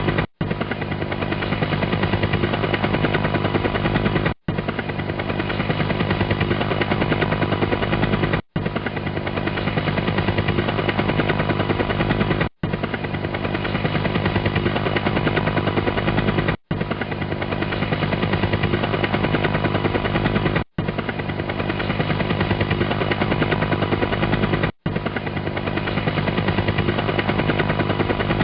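Helicopter rotor chopping steadily over a steady engine hum, broken by a brief gap about every four seconds where a short recording repeats.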